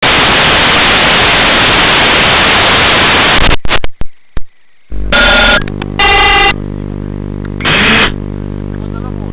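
Loud steady hiss of an analog FPV video receiver with no signal, which breaks into crackles and cuts out about three and a half seconds in as the drone's video link locks on. A steady hum follows, with three short louder bursts.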